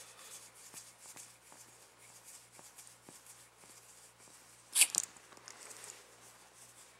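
A small terrier playfully mouthing and nibbling a hand, with soft rustling and faint clicks of fur and skin close to the microphone. Two sharp noises come close together about five seconds in.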